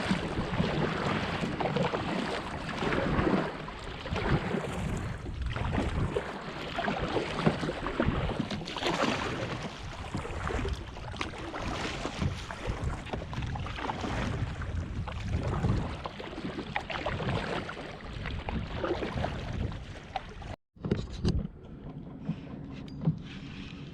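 Water splashing and sloshing around a kayak, with wind buffeting the microphone. About twenty seconds in it cuts off abruptly, and a quieter low steady hum follows.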